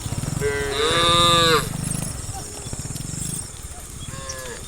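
Cattle mooing: one loud call with a rising then falling pitch about half a second in, lasting about a second, and a shorter, fainter call near the end, over a steady low throb.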